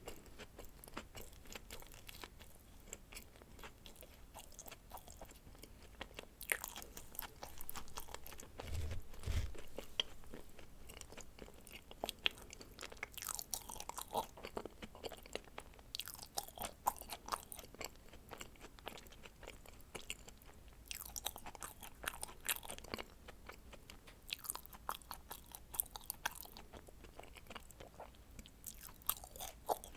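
Close-miked chewing of dacquoise, almond-meringue sandwich cookies with cream filling, making soft crackly crunching in bursts of quick small clicks. A brief low thud comes about nine seconds in.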